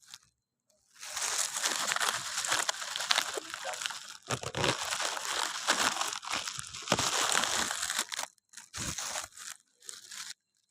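Crinkling and crunching noise in long stretches with a few short breaks, stopping shortly before the end.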